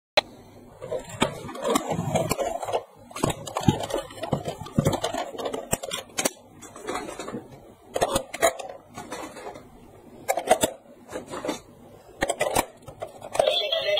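Plastic battery-operated toy train being handled: clicks, knocks and rattles as its battery compartment is opened and AA batteries are pushed into the holders. Near the end music starts.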